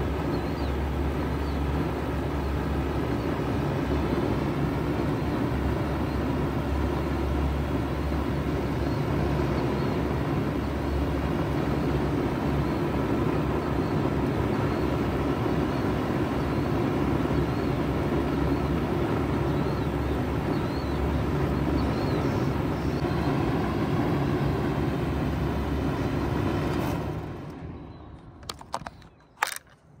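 2006 Bard wall-hung heat pump running in cooling mode, its compressor and condenser fan giving a steady, loud hum. Near the end the sound falls away sharply, followed by a few clicks.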